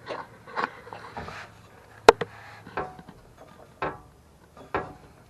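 A series of knocks and clunks from turbo-kit piping and parts being handled and fitted, about seven in all, with one sharp, loud knock about two seconds in.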